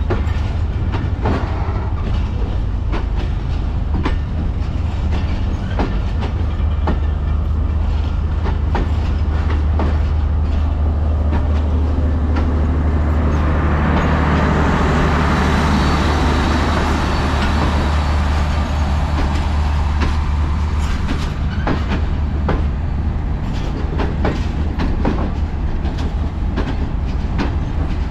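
Pakistan Railways passenger coaches rolling past, their wheels clicking over the rail joints. Around the middle a power van goes by, and its generator sets add a loud steady hum and hiss for several seconds.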